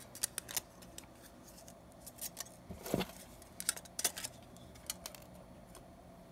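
Handheld hole punch clicking and thin beer-can aluminium crinkling as the punch is worked onto the centre of a cut-out petal: scattered light clicks, the sharpest about three seconds in and a few more around four seconds.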